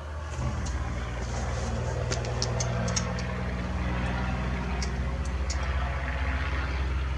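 Low steady hum of a vehicle engine running, swelling in about half a second in, with a few faint small metallic clicks from hand tools on the light bar's mounting bolts.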